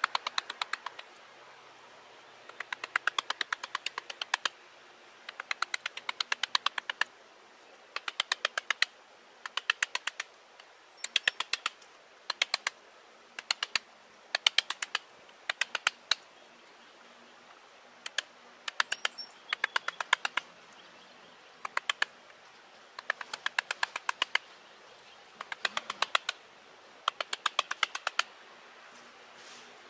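Wooden mallet tapping a carving chisel into a living tree trunk. The taps come in runs of several quick, sharp strikes, each run about a second long, with short pauses between.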